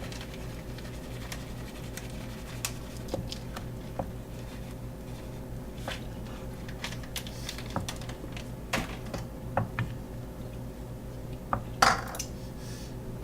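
Dishes and utensils being handled in a kitchen: scattered light clinks and clicks, with a louder clatter near the end, over a steady low hum.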